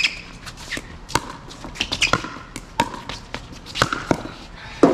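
Pickleball rally: paddles striking the hard plastic ball and the ball bouncing on the court, an irregular series of sharp pops, the loudest one near the end.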